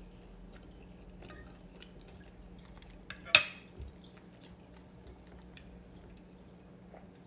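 Tableware at a meal: a single sharp, ringing clink of cutlery against dishware about three and a half seconds in, with a dull knock just after it, among faint small clicks of eating utensils over a low steady hum.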